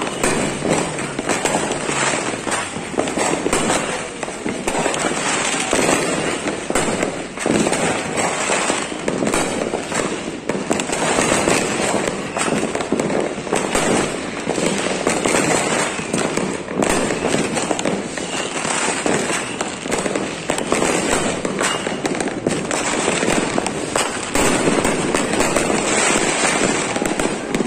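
Many fireworks going off at once: a dense, unbroken barrage of overlapping bangs and crackling from aerial shells and firecrackers.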